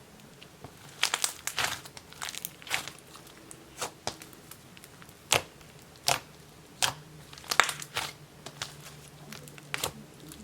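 Soft clay slime being handled, stretched and squeezed, giving irregular sharp pops and crackles, some single and some in quick little clusters.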